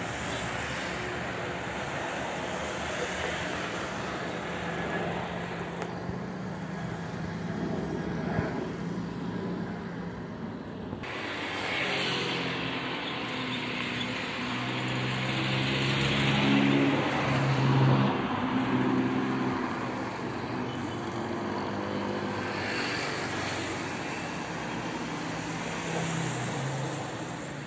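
Distant jet airliner engine noise across the airfield, a steady rushing sound. After an abrupt change about eleven seconds in, road vehicle engines, motorcycles among them, pass close by, swelling to their loudest a few seconds later and then fading.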